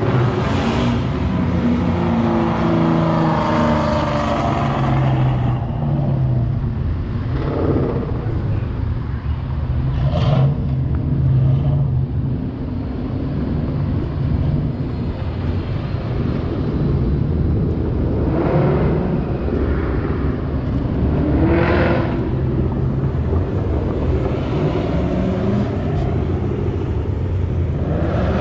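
Ford Mustangs and other vehicles driving past one after another, each engine note swelling and fading as it goes by, over a steady low engine drone. The loudest pass comes in the first few seconds, its pitch rising as it accelerates.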